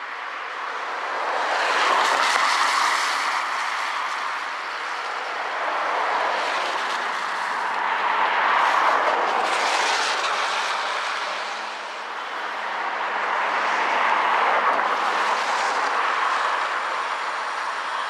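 Road traffic passing close by: tyre and engine noise from three vehicles in turn swells up and fades away, the loudest pass about two seconds in, then others around eight and fourteen seconds.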